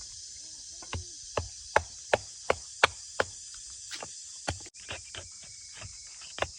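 A tool striking wood again and again: a run of sharp, evenly spaced blows, about three a second, then softer, more irregular knocks over a steady high hiss.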